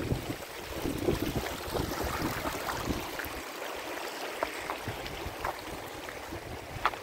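Shallow stream running over stones, a steady rushing hiss. Wind buffets the microphone for the first three seconds or so, and a few light ticks stand out here and there.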